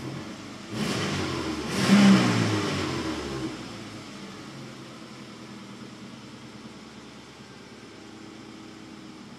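2002 Subaru Impreza 2.5RS's 2.5-litre flat-four engine revving up about a second in, peaking about two seconds in, then dropping back to a steady idle. The idle is the rough warm-engine idle that the owner is recording as a fault.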